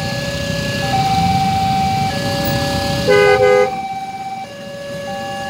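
Railway level-crossing warning alarm sounding its alternating two-tone signal, each tone held about a second, over idling motorcycle and car engines. About three seconds in a horn gives a quick double toot, the loudest sound.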